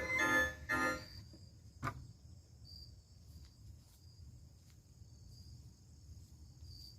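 Faint crickets chirping steadily in the background. A pitched electronic sound trails off in the first second, and there is a single sharp click about two seconds in.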